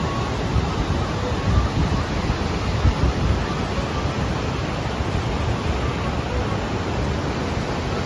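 Pykara Falls: white water cascading over broad rock shelves, a steady, even rush of noise.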